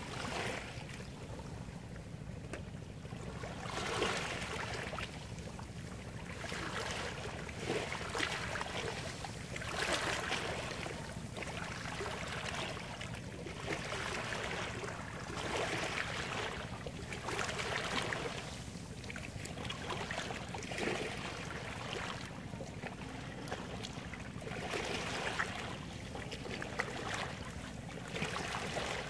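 Small waves washing up on a coral-sand beach: a surf hiss that swells and fades every few seconds over a steady low rumble.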